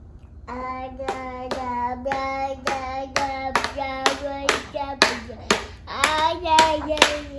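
A toddler sings a wordless tune, holding each note, while clapping or tapping a steady beat about twice a second.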